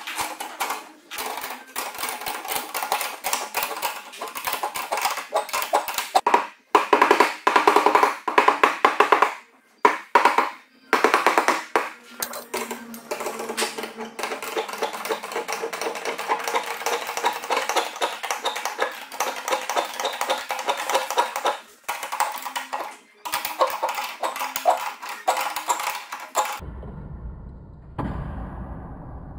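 Ratchet wrench clicking rapidly as it tightens the bolts of the steel hoops on a larch-wood hot tub. The clicking comes in long runs with short pauses as the hand resets, and stops near the end, leaving a low rumble.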